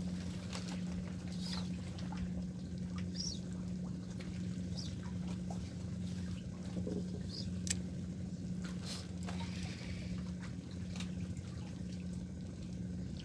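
A steady low engine hum runs throughout, with scattered light clicks and a few short high squeaks from a spinning rod and reel being handled.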